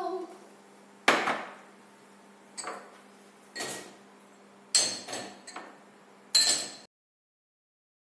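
Drinking glasses and a bowl being set into a dishwasher's upper wire rack: a string of about seven separate knocks and glassy clinks, some ringing briefly. The sound cuts off abruptly a little before seven seconds in.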